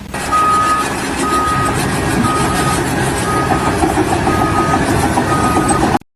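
Reversing alarm of a heavy vehicle beeping six times, about once a second at one steady pitch, over the rumble of its engine.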